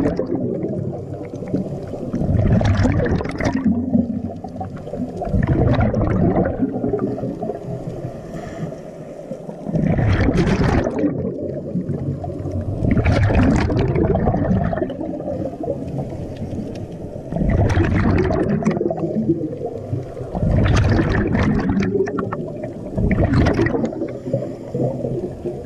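Scuba regulator breathing underwater: a gurgling burst of exhaled bubbles every few seconds, about eight in all, with a steady low rumble of water between them.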